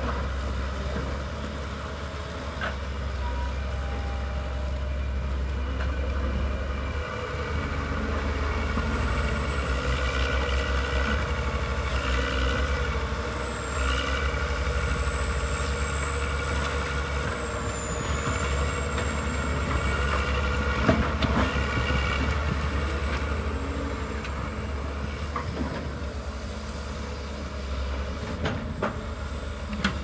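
Diesel engines of several hydraulic excavators, one of them a Komatsu, running under load while digging and swinging: a steady low rumble that swells and eases with the work, with a faint thin whine wavering in pitch above it and a few light knocks.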